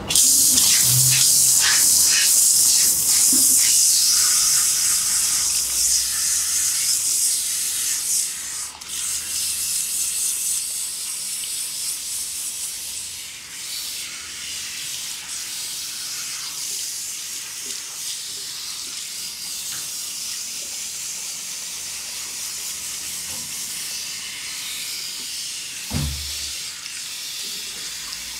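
Water spraying from a shampoo-basin hand shower as hair is rinsed. A loud hiss for the first eight seconds or so, then softer running and splashing water, with a short thump near the end.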